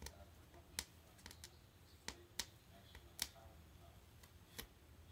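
Russian Blue cat biting and chewing a foam roller: faint, sharp, irregular crunching clicks as her teeth work into the foam, about nine in five seconds.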